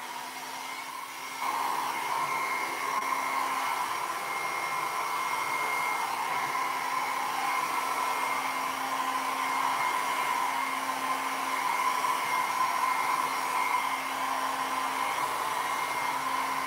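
Small travel hair dryer running steadily, blowing air, with a constant motor hum under the rush of air; it gets louder about a second and a half in and then holds steady.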